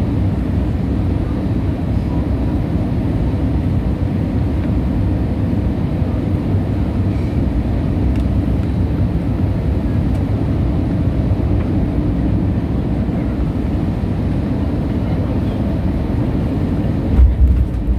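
Jet airliner cabin noise during landing: a steady low rumble of engines and airflow, with a brief loud low thump about a second before the end.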